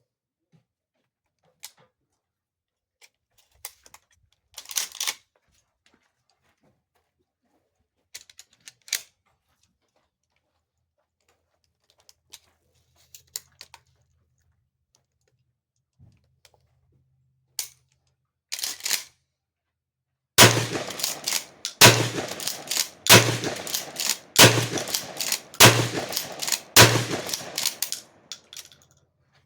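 Remington 870 20-gauge pump-action shotgun fired six times in quick succession, about one shot every second and a quarter, each with a long ringing tail. Before the shots come scattered light clicks and clacks of the gun being handled.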